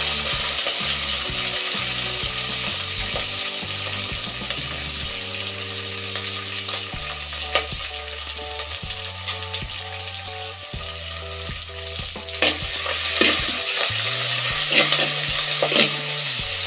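Sliced onions and green chillies sizzling steadily in hot oil in a clay pot. About twelve seconds in, a spoon starts stirring them, with a few clicks as it scrapes against the pot.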